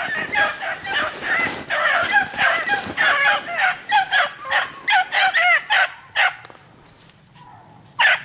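Four-month-old hound puppies giving tongue on a hare's track: a rapid run of high, yipping yelps and bays that stops about six seconds in, with one more sharp yelp near the end.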